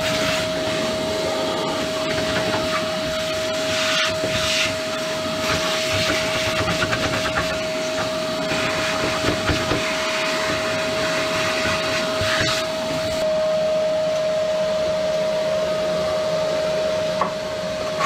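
Wet-and-dry vacuum running with a steady whine while its nozzle is worked over the underside of a van, sucking up caked road dirt and grit with irregular scraping and rattling at the nozzle.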